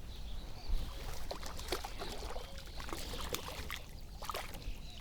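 Irregular small splashes and dripping water mixed with light knocks, as a small, lively grass carp flips about while being landed and handled.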